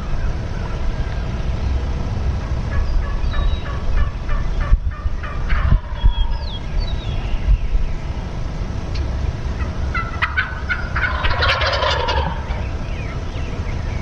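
Wild turkey toms gobbling twice: a rattling gobble about three seconds in, and a louder one about ten seconds in.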